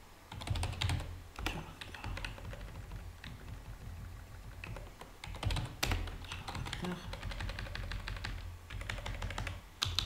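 Typing on a computer keyboard: irregular runs of key clicks, with one louder keystroke about six seconds in, over a low steady hum.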